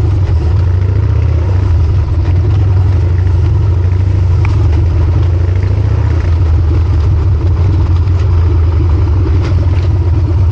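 Harley-Davidson Sportster XL1200C's air-cooled V-twin running steadily under way through a short open exhaust pipe, loud and low-pitched, with a few light clicks.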